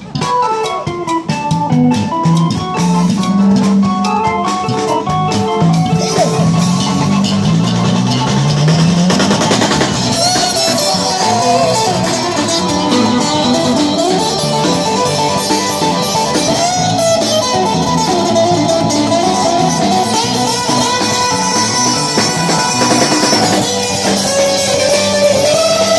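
Live busker band playing an instrumental: a guitar melody over bass and drums.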